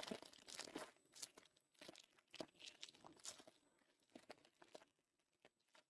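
Faint crinkling and tearing of a trading-card pack wrapper being opened, a run of short crackles that dies out about a second before the end.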